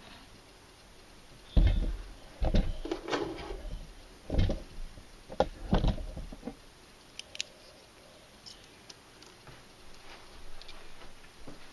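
Handling noise: a few dull thumps and knocks about one and a half to six seconds in, then scattered light clicks and taps, as hands move around a miniature room model close to the camera.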